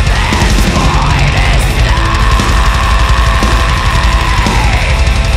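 Heavy metal song with distorted guitars, bass and drums, loud and dense; about two seconds in a long held note comes in over it and fades near the end.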